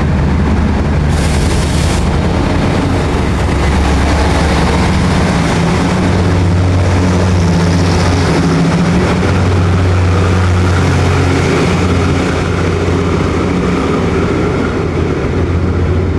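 Diesel locomotive engine of an express train running loud and steady as the train pulls out of the station, with a short hiss about a second in.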